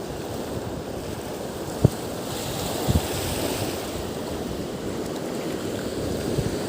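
Waves washing and wind buffeting the microphone, a steady rushing noise, with two brief low thumps about two and three seconds in.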